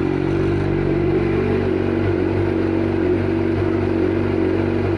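Suzuki GSX-R sport bike's inline-four engine idling steadily through an M4 GP slip-on exhaust with the sound baffle fitted.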